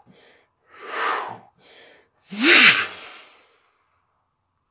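A man breathing forcefully close to the microphone: quick noisy breaths about a second apart, then one loud exhale about two and a half seconds in with a brief voiced rise and fall in pitch.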